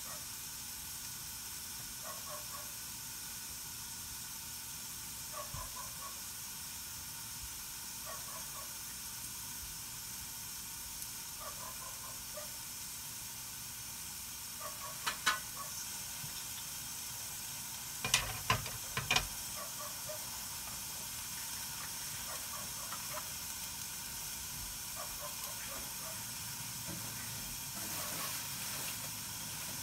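Mung bean sprouts cooking without oil in a covered pan: a steady hiss of steam with faint sizzling. A few sharp clicks come a little past the middle, two and then a quick cluster of three or four.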